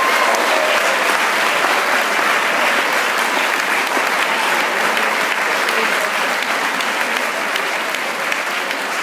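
Audience applauding: dense, steady clapping that eases off slightly toward the end.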